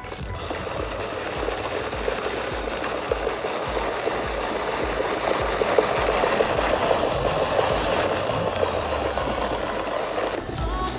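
Small electric motor and gearbox of a WPL C34 RC crawler whirring steadily as the truck climbs a dirt slope, its tyres scrabbling on loose, dry earth.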